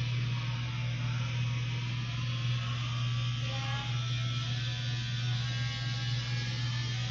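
A steady low electrical hum with a faint hiss over it.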